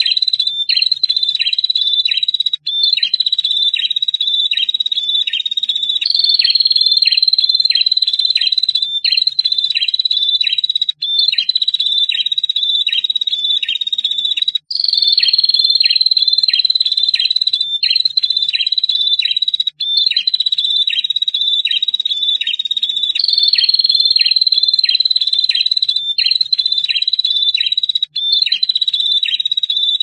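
Prinia (prenjak) calling in long, fast chattering trills, the 'ngetir' call. A high sustained note carries rapid downward ticks about three times a second, in phrases that restart every two to three seconds with brief breaks.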